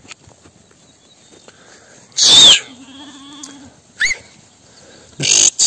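Animal calls: a loud call about two seconds in, a short higher call around four seconds, and another loud call near the end, with a fainter wavering, bleat-like call in between.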